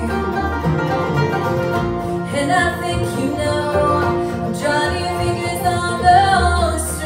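Live acoustic bluegrass band playing: a woman singing lead over acoustic guitar, mandolin, banjo and upright bass.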